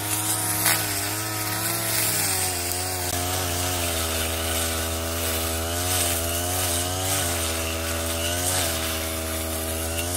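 Brush cutter's small engine running steadily as its blade cuts through tall grass and weeds, its pitch dipping and recovering again and again as the blade bites into growth.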